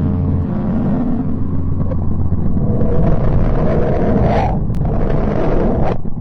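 Spacecraft radio and plasma-wave recording of a planet converted into audible sound: a deep, noisy drone with a low hum under it. It swells about four seconds in and breaks off briefly near the end as a different texture takes over.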